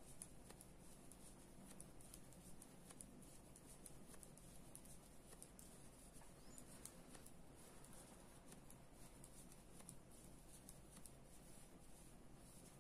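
Near silence with faint, irregular clicks and rustles from 3.5 mm metal knitting needles and yarn as garter stitches are knitted by hand.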